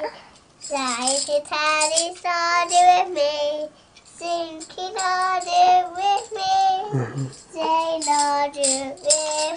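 A young child singing a tune in short held notes, with brief pauses between phrases.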